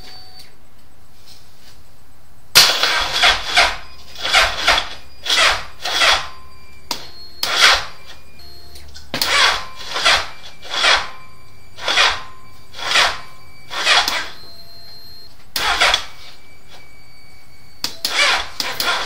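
Suzuki Hayabusa's inline-four cranking slowly on its starter motor without firing, a rasping churn that surges and drops about twice a second as it labours against each compression, in several attempts with short pauses between. This is the slow crank the owner is chasing: the battery is new, but the voltage sags to 7–8 V while cranking.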